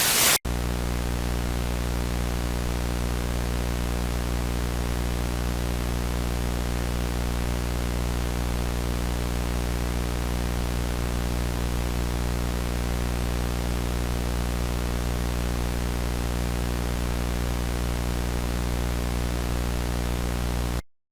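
Static hiss over a low buzzing hum with many even overtones, the sound of a dead broadcast signal after an emergency alert. It comes in abruptly after a brief burst of noise, holds steady and loud, and cuts off suddenly near the end.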